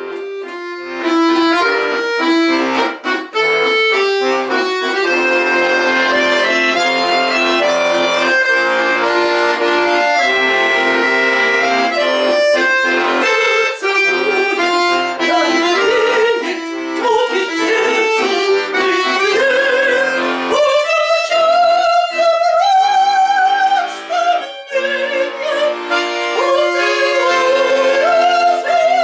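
Instrumental music: a melody over held chords, with a wavering melody line standing out about two-thirds of the way through.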